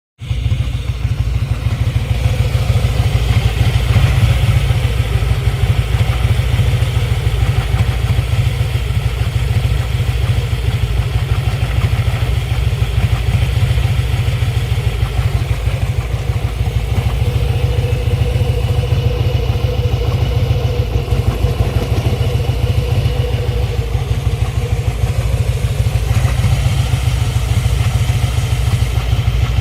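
Harley-Davidson 2010 FXSTC Softail Custom V-twin engine running steadily, with a clatter over the low pulsing exhaust beat. The bike has a Hayden M6 primary chain tensioner fitted to cure a primary-drive noise and vibration that the owner says is not yet fully cured.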